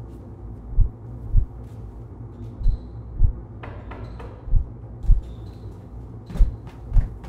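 Heartbeat sound effect: a deep double thump, lub-dub, repeating slowly about every two seconds, four beats in all. Fainter sharp taps and knocks come in from about halfway through.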